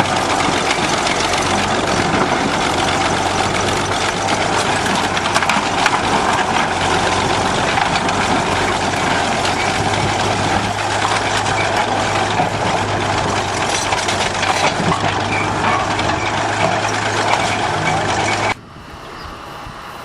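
Engine of a 20-ton 1953 International bulldozer running steadily as the machine works over cars, a dense mechanical din with a constant low hum. It cuts off abruptly near the end.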